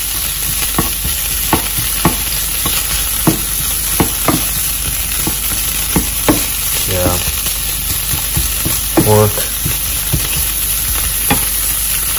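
Diced leftover roast pork and garlic sizzling in oil in a nonstick frying pan as it warms through. It is stirred with a silicone spatula that taps and scrapes against the pan about once a second.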